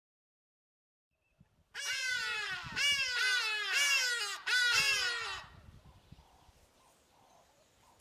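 Hadeda ibises giving their loud, harsh, repeated calls, each note arching and falling in pitch. The calls run for about four seconds, starting nearly two seconds in and stopping abruptly.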